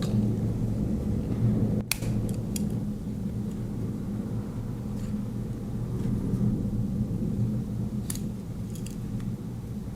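Victorinox Farmer X Swiss Army knife tools clicking as they are handled: a sharp snap about two seconds in with a few lighter clicks after it, and another few clicks near the end, over a steady low rumble.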